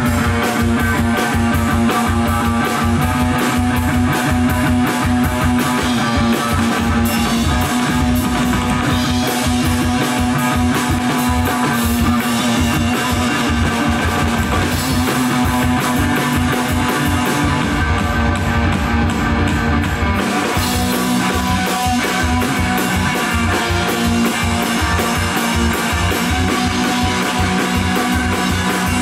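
Live rock band playing an instrumental passage: electric guitar over a full drum kit, loud with steady drumming. The guitar moves to a lower chord about twenty seconds in.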